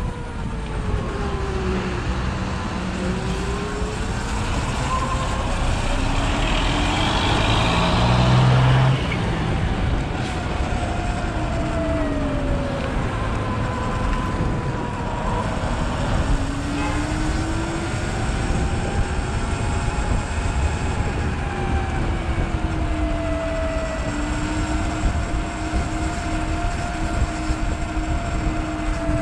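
Sur-Ron electric dirt bike's motor whining while riding, its pitch slowly rising and falling with speed, over steady wind and road rumble. A louder rush of noise comes about seven to nine seconds in.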